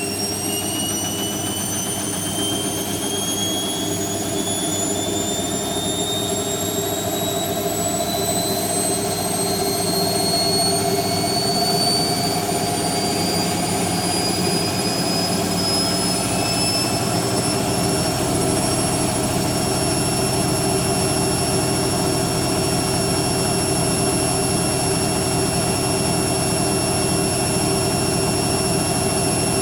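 Hoover Quattro AE130 washing machine spinning up in its final spin: the motor's whine rises steadily in pitch, then levels off at a steady high-speed spin about two-thirds of the way through.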